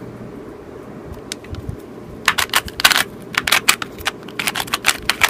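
Hard plastic being handled: a quick, irregular run of sharp clicks and crackles starting about two seconds in, after a couple of faint clicks.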